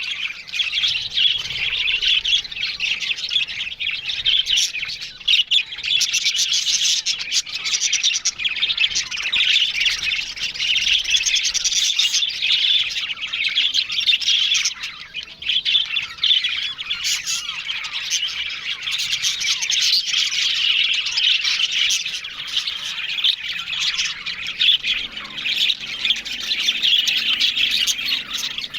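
A colony of budgerigars chattering and chirping together, many high calls overlapping without a break, with the odd sharper squawk.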